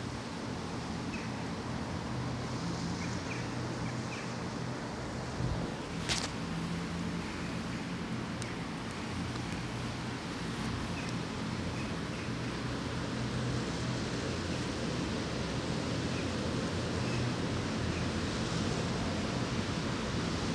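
Steady outdoor background noise, a low hum under an even hiss, with a few faint short chirps and a single sharp click about six seconds in.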